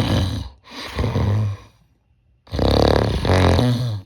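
A person snoring deliberately with an anti-mouth-opening band taped vertically over the lips, still allowing a little mouth breathing. The snore vibrates through both mouth and nose, so the band does little to stop it. There are two snores of about a second each, a short pause, then a longer snore.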